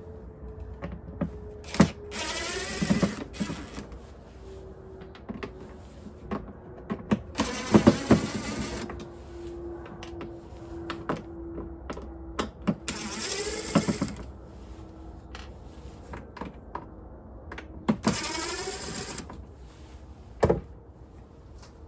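Battery-powered drill or screwdriver backing screws out of the plastic mop bucket, running in four short spurts of about a second each, with its pitch changing as the motor speeds up and slows. Clicks and knocks of plastic parts being handled fall between the spurts.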